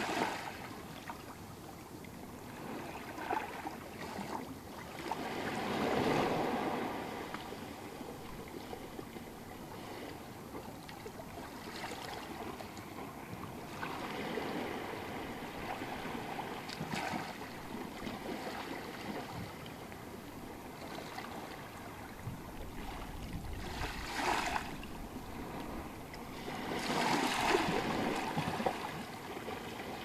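Small waves washing up onto a sandy beach in a sheltered cove, a steady wash of water that swells every few seconds, the strongest surges about six seconds in and near the end.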